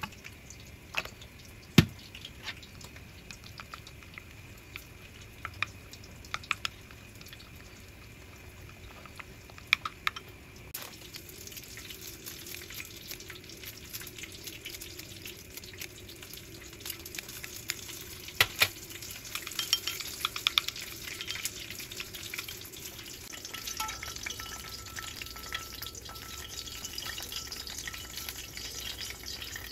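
Kitchen food-prep sounds: scattered clicks and taps of squeeze bottles, scissors and chopsticks against a glass bowl, then from about ten seconds in, hot oil frying with a sizzle and crackles that grows louder and steadier toward the end.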